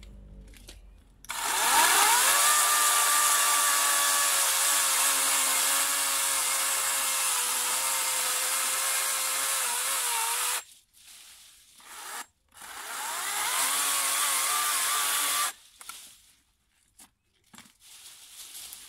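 Florabest 40-volt battery chainsaw spinning up with a quick rising whine and cutting through wet, freshly felled branch wood. It runs steadily for about nine seconds and then stops suddenly. After a short pause it runs again for a couple of seconds and stops, followed by faint rustling of branches.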